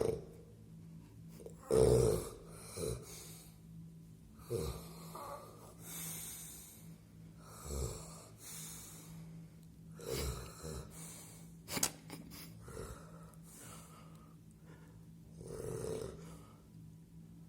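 A man snoring loudly in his sleep: irregular rasping snorts and breaths every second or two, with one sharp snort about twelve seconds in. The uploader takes the snoring for sleep apnea.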